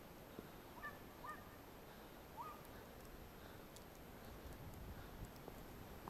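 Faint, distant yelps of a hunting dog giving tongue, three short calls in the first two and a half seconds: the dog has put up game and is running it, most likely a hare.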